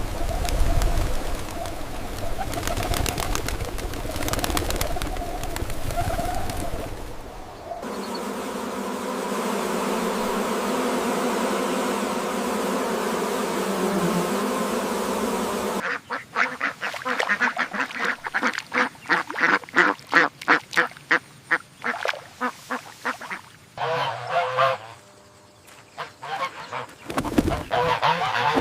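Ducks quacking, part of a run of farm-animal clips that change abruptly every several seconds; the clearest stretch, in the second half, is a quick series of loud quacks.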